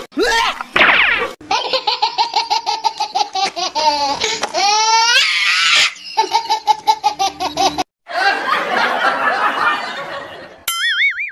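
Loud laughter in rapid, repeated ha-ha bursts with short breaks, the pitch sweeping up and down near the middle, then a rougher, noisier stretch. Near the end comes a short warbling, wavering tone.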